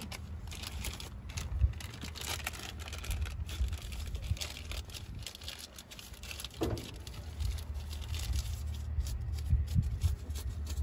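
Plastic crinkling and rustling as a small bottle and its wrapping are handled, with scattered light clicks and a low rumble underneath.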